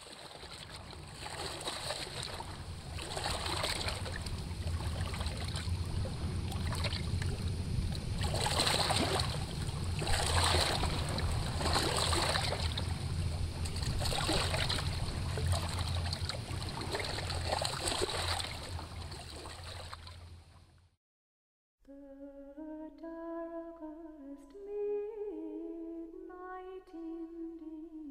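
Water rushing and splashing over shoreline rocks in repeated surges every second or two, with a low rumble underneath. It fades out about three quarters of the way through, and after a moment of silence a slow hummed melody begins.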